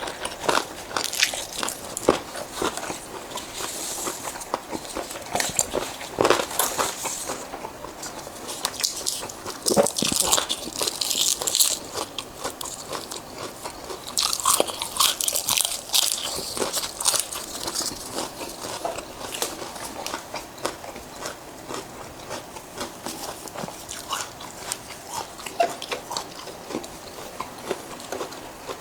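A person eating close to the microphone: biting, crunching and wet chewing with many small clicks and smacks, and louder crisp crunching twice, around a third and a half of the way in.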